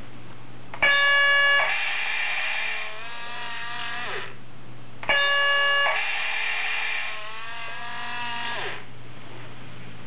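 The built-in sound unit of an Aoshima 1/32 RC bus plays an electronic door chime of steady tones, then a longer warbling electronic sound that ends in a falling tone. The sequence plays twice, about a second in and again about five seconds in, as the model's automatic door works.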